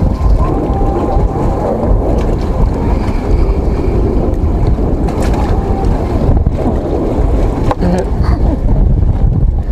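Wind buffeting the microphone on a small boat at sea, a steady low rumble, with a few light knocks about five to eight seconds in.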